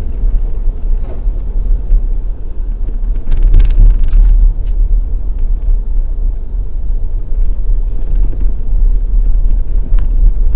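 Inside a vehicle's cabin while driving on a dirt road: a steady low rumble of the engine and tyres, with a few short knocks and rattles from the rough track about three to five seconds in.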